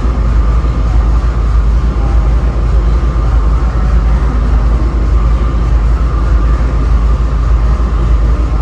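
GE P42DC diesel locomotive running steadily after start-up: a loud, even low rumble with a steady higher hum over it.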